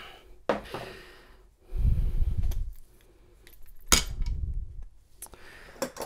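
Metal clicks and clinks from a steel padlock being handled and turned over. Sharp clicks come about half a second in, about four seconds in and near the end, with dull low knocks between them.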